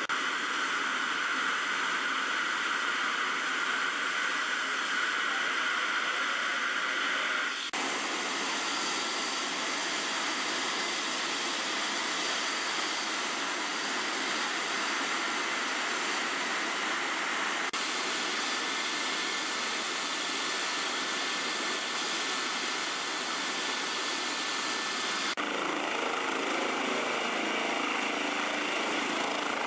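Rescue helicopter running on the ground with its turbine engines and main rotor turning: a steady rushing noise with a high turbine whine. The sound shifts abruptly a few times where the footage is cut.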